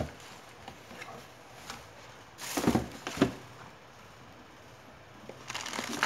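Plastic wrapping crinkling and rustling as an electric shower heater is handled and lifted out of its bag, in two bouts: one about two and a half seconds in and another near the end.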